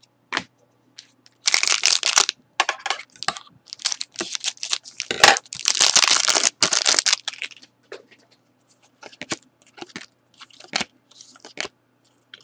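Foil wrapper of a Panini Select hockey card pack crinkling and tearing open, in dense bursts through the first half. Softer, scattered clicks and rustles of the trading cards being handled follow near the end.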